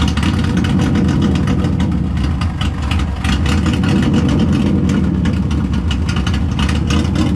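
Subaru Impreza's flat-four engine idling loud and lumpy, sounding like it's got a massive cam, with an exhaust leak just ahead of the muffler adding to the loudness. It is a rough, freshly recovered idle while an auto-tune is still making small changes to the fuel map.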